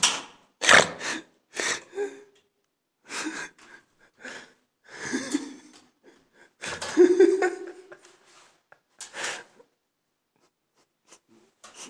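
A person's loud, short breathy bursts of air close to the microphone, about a dozen in a row, the longest and loudest about seven seconds in, dying away after about nine seconds.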